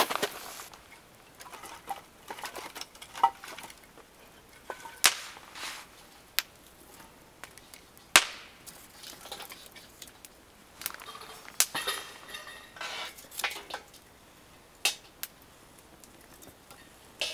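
Wood fire crackling in a metal fire pit, with scattered sharp pops every second or two.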